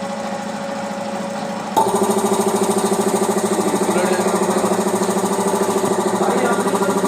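Air compressor running with a rapid, even pulsing. It is quieter at first, then turns louder with a click just under two seconds in.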